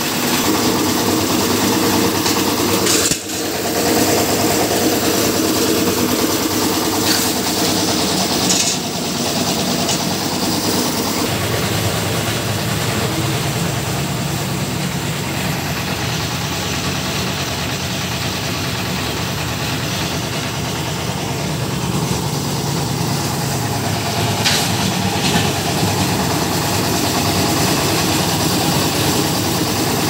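Engine of a small portable concrete mixer running steadily while its drum turns, mixing concrete, with a few short clanks over it.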